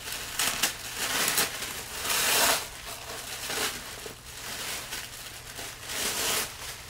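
Rustling and crinkling of packaging and clothes as a wrapped bundle of garments is opened by hand, in a run of bursts loudest about two seconds in.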